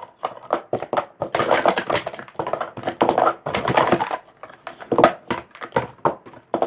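Speed Stacks White Pro sport stacking cups clacking rapidly as a stacking cycle is run up and down: a dense, uneven clatter of hollow plastic cup knocks.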